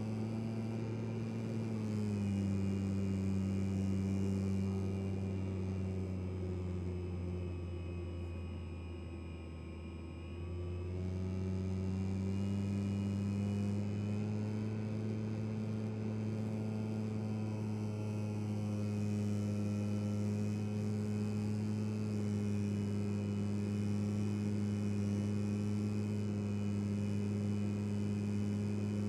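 Brushless electric motor and propeller of an FMS 1500mm P-47 model plane, heard from the onboard camera as a steady humming drone. The pitch drops a little about 2 s in and sags further for a couple of seconds as the throttle is eased, then climbs back about 11 s in and holds steady.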